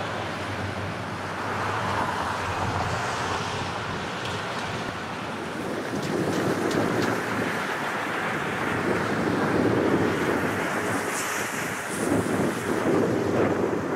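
Twin-engine jet airliner's engines at takeoff power, a steady rumble, with wind buffeting the microphone.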